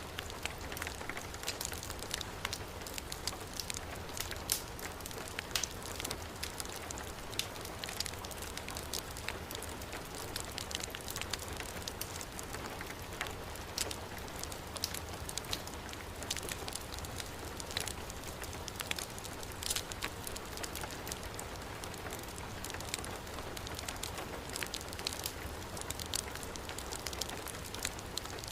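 Steady heavy rain with the scattered crackles and pops of a wood fire burning in a fireplace.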